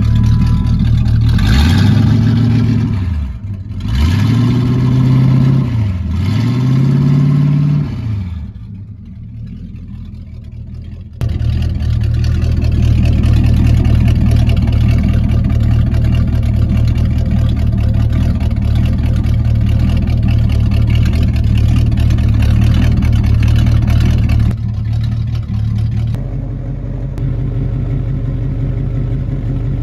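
1979 Oldsmobile Cutlass Supreme's engine with its mufflers cut off, running through open pipes: revved three times, each rev rising and falling, then idling loud and steady for a long stretch. Near the end it idles more quietly, with the mufflers still on.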